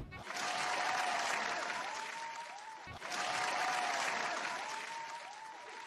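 Crowd applauding, with a few short gliding tones over the clapping. The same stretch of applause starts over about three seconds in.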